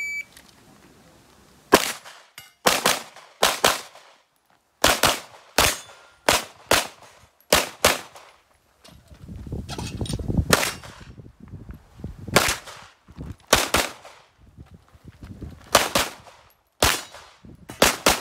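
A shot timer's start beep, then a pistol firing a practical-shooting stage. The shots come mostly in quick pairs, with short gaps between strings as the shooter moves.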